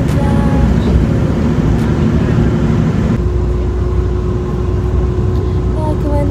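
Steady low rumble of engine and road noise inside a moving coach bus, heard from a passenger seat. About three seconds in the sound shifts and a steady hum joins the rumble.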